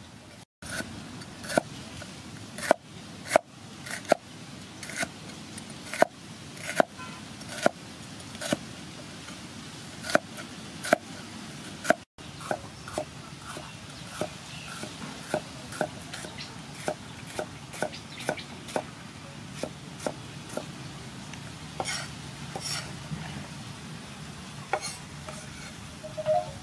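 Cleaver chopping bitter gourd on a round wooden chopping board, each stroke a sharp knock of the blade on the wood. About one loud knock a second at first, then lighter, quicker strokes about two a second in the second half.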